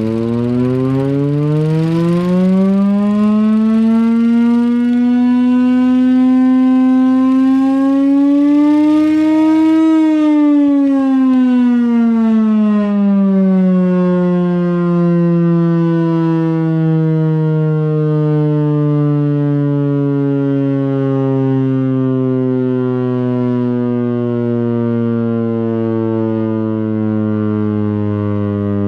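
Chrysler air raid siren, driven by its Hemi V8 engine, winding up in pitch to a peak about ten seconds in. It then winds slowly down for the rest of the time, very loud throughout.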